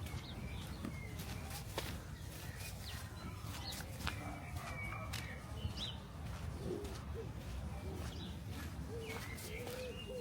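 Birds chirping in short, scattered calls over a steady low rumble of outdoor background noise, with a few sharp clicks.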